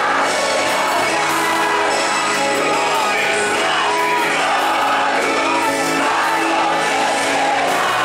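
Live Christian worship song: band music with a lead singer, the congregation singing along and a few shouts and whoops.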